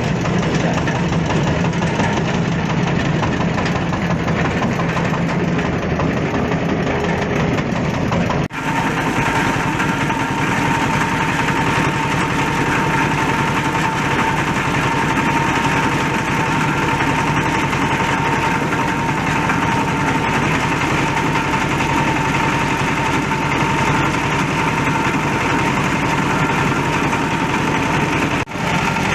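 Waste-fabric shredding machine running steadily, a loud, continuous mechanical din. After a brief dip about eight seconds in, a steady high hum sits over the noise.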